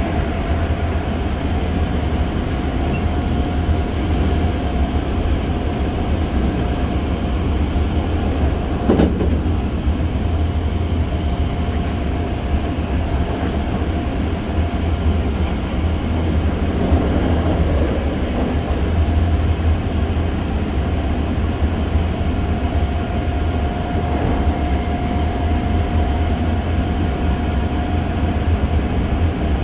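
Running sound inside a Hankyu 6300 series electric train car travelling at speed: a steady deep rumble with a constant thin whine above it. About nine seconds in there is one short, louder rush.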